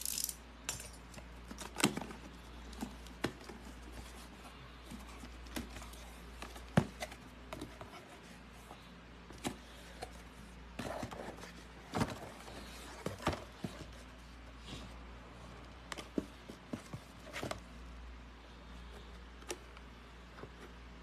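Hands handling a cardboard shipping box and a boxed mouse package: scattered taps, knocks and short rustles of cardboard and packaging over a faint steady low hum.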